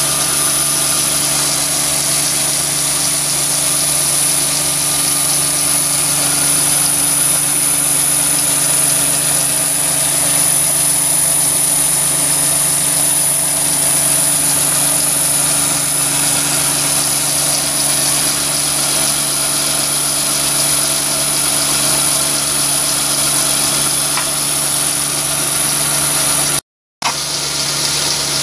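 Metal lathe running steadily under power, a constant mechanical hum with a high whine over it, cutting out for a moment near the end.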